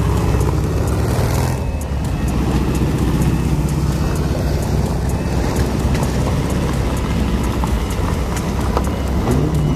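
Motor trike engines running at low speed as several trikes pull away in a line one after another; one engine revs up near the end.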